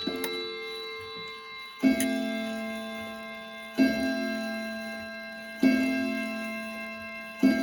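Howard Miller Shelbourne regulator wall clock's Hermle 341-020 movement striking the hour: after a last higher note near the start, four hour strikes of one pitch about two seconds apart, each ringing and fading away.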